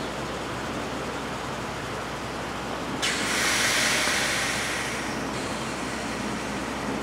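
Steady running noise from a stopped NJ Transit passenger train. About three seconds in comes a sudden loud hiss of air venting from the train, which fades out after about two seconds.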